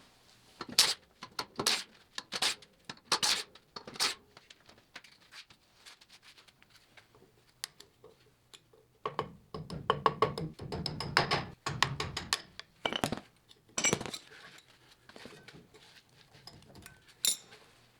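Metal tools clinking and clanking against metal: a run of separate sharp metallic knocks, with a busier stretch of rattling around the middle and one louder knock near the end.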